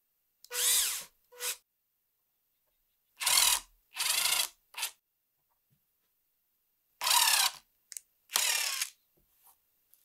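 Handheld power drill boring into wood in about five short bursts of about half a second, with a few shorter blips between; the motor whine rises and falls within each burst. The bit cuts first with a twist drill and then with a wood auger bit.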